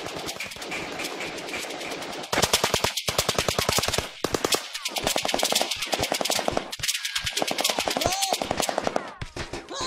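Automatic rifle fire: long rapid bursts of machine-gun shots with short breaks between them, louder from about two seconds in.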